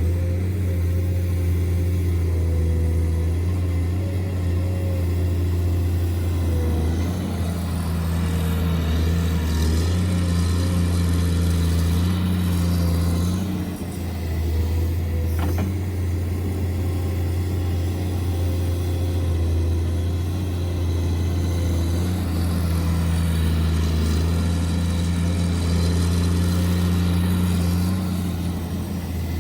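Steady low engine drone, like a diesel running at idle, with its pitch shifting slightly a few times and a brief click about halfway through.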